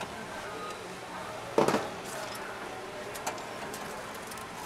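Steady background hubbub of voices at a drinks stall, with one loud clunk about a second and a half in and a lighter knock a couple of seconds later, typical of utensils or a cup handled on a steel counter.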